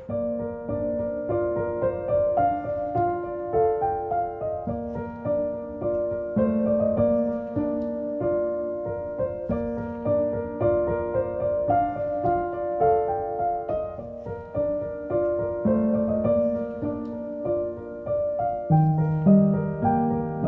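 Background music: a gentle piano piece with soft repeating melodic phrases, a lower bass line coming in near the end.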